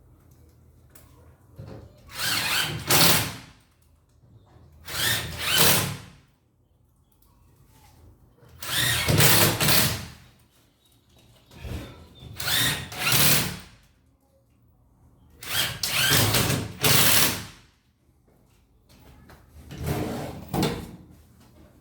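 A power drill-driver runs in repeated short bursts, about seven times, each a second or two long with brief pauses between: screws being driven into wood.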